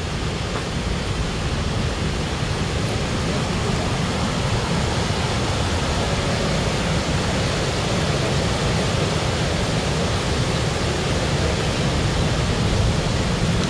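Rocky mountain river rushing over boulders: a steady rushing noise with a deep rumble, growing slightly louder.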